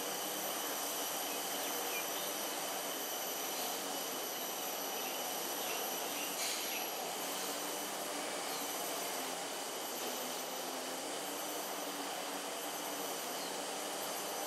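Steady outdoor ambience: an even hiss with several constant high-pitched drones, like an insect chorus, and one faint click about six seconds in.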